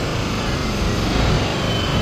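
Floodwater rushing through a dam's open spillway gates and crashing into the river below: a steady, dense rush of water noise, heaviest in the low end.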